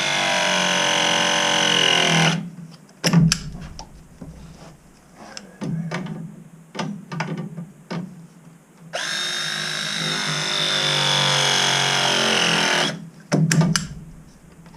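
A cordless drill running in two runs of about four seconds each, its motor whine sagging slightly in pitch under load, with sharp clicks and knocks of tool handling between the runs.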